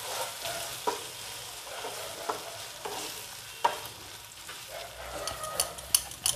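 Boneless chicken pieces frying with onion and a ground spice paste in a non-stick frying pan, sizzling steadily as a wooden spatula stirs and scrapes them. The spatula knocks on the pan a few times, and near the end come several quick light clicks.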